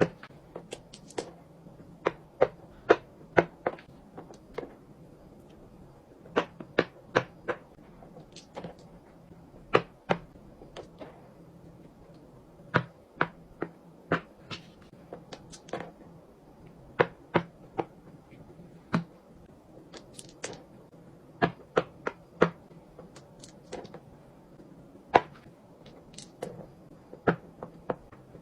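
Fidget toys being handled: a string of sharp clicks and taps at irregular intervals, sometimes two or three in quick succession.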